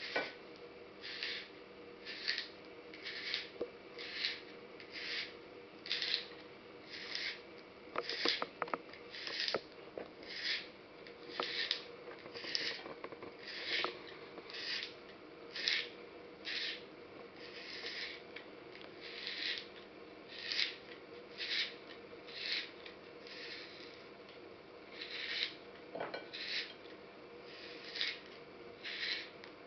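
Peeled carrot being pushed and twisted through the blade of a Brieftons cone spiral slicer: a short rasping cut about once a second, one with each twist.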